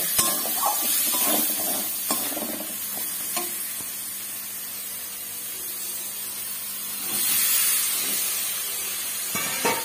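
Green peas and spiced tomato sizzling in hot oil in a metal wok, with a spatula stirring and scraping against the pan in the first few seconds. The sizzle swells briefly about seven seconds in.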